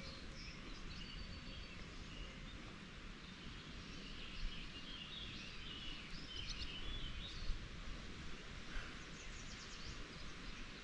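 Birds chirping and singing, busiest midway, over a faint steady low outdoor rumble; a couple of short taps stand out midway.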